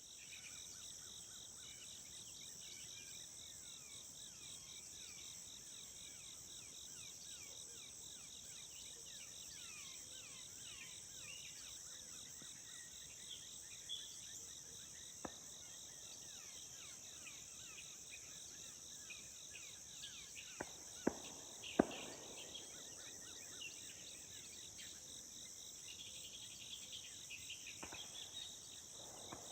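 Faint, steady late-summer chorus of crickets and other insects, with many short bird chirps scattered through it. A few sharp clicks come about two-thirds of the way in.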